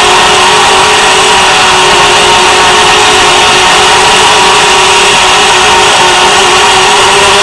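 ALIGN MR25P racing quadcopter's brushless motors and propellers whining steadily in flight, with a buzzing hum and the rush of the props.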